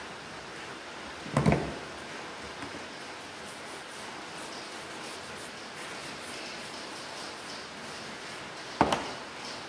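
Two short knocks, one about a second and a half in and one near the end, over a steady hiss.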